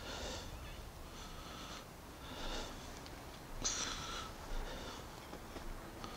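A person breathing noisily through the nose close to the microphone: short, slightly whistling breaths about once a second.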